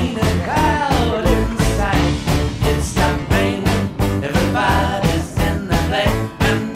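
Background music: an upbeat song with a steady drum beat and a melodic line over it.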